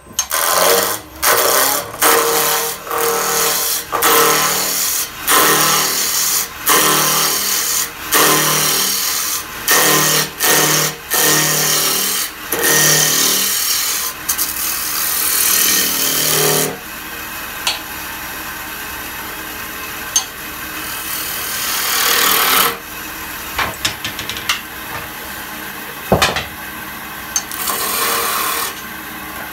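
Wood lathe spinning a goblet blank, a turning gouge cutting the wood in many short passes of about a second each. About halfway through the cutting turns quieter and steadier, with one louder stretch and a few sharp ticks.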